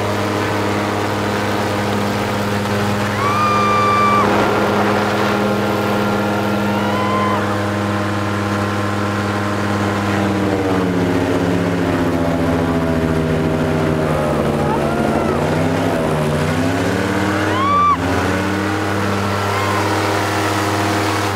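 Engine and air propeller of an air-propelled boat running at speed, a loud steady drone. Its pitch drops a little about halfway through as the boat slows, then wavers up and down near the end.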